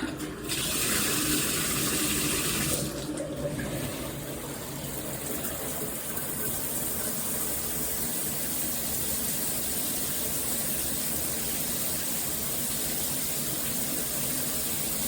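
Water spraying steadily from a Hibbent all-metal shower head running at full flow, a continuous hiss of water. It is a little louder and brighter for the first three seconds or so, then settles to an even level.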